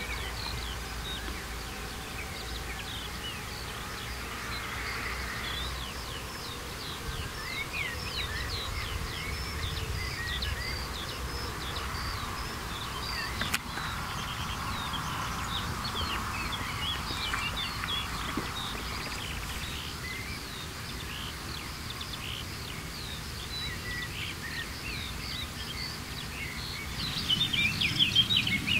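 Several birds singing, many short chirps and trills throughout, over a low steady rumble. A single sharp click comes about halfway through, and the birdsong grows louder near the end.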